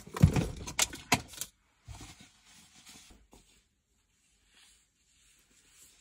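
A quick run of sharp clicks and knocks in the first second and a half, then faint rustling that fades out: handling noise from things being moved about while searching for a jacket.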